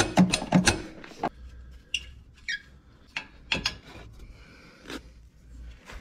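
Hand ratchet clicking about four times a second as a rusted exhaust manifold bolt is backed out, stopping about a second in. It is followed by a couple of short squeaks and a few light knocks and clicks from the socket and bolt being handled.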